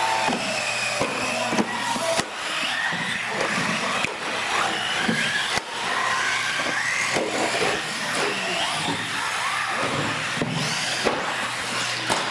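Small radio-controlled cars racing, their electric motors whining and gliding up and down in pitch as they speed up and brake, with a few sharp knocks.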